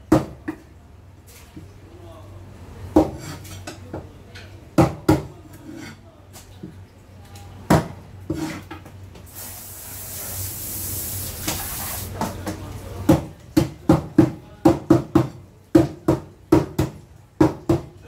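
Knife knocking on a cutting board as fish is cut, in scattered sharp knocks. A hiss of spraying water runs for about three seconds in the middle, then a quick run of chops, two or three a second, follows.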